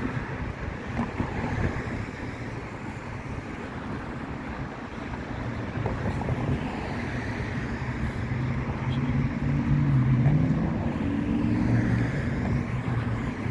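Outdoor noise of a motor vehicle going by, its low engine hum growing and loudest about ten seconds in, over a steady rush of wind on the microphone.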